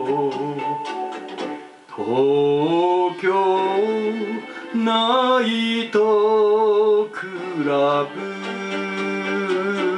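Karaoke backing track playing an instrumental passage from a television: a lead melody that wavers and slides over guitar and band accompaniment.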